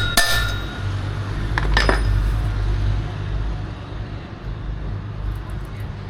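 Metal tools and parts clinking and ringing: a sharp clink right at the start and another about two seconds in, during work on the scooter's rear wheel bearings. A steady low hum runs underneath.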